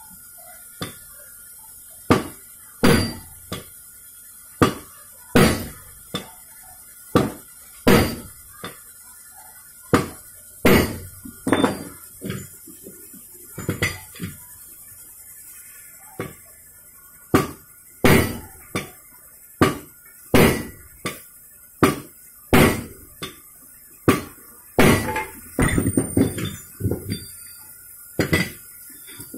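Heavy steel tool striking a Kawasaki 175 motorcycle crankshaft set on a steel pipe: sharp metal-on-metal blows, roughly one a second and sometimes in quick pairs, each with a short ring. The blows drive the crank halves together onto the new crankpin.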